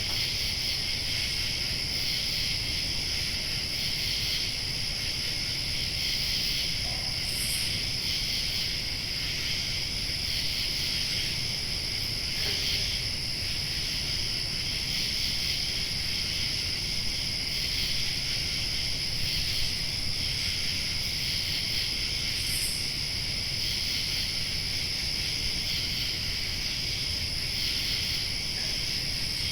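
Summer night ambience: a steady chorus of crickets and other night insects, with a thin high-pitched insect drone above it and a low rumble underneath. Twice a short higher note stands out briefly.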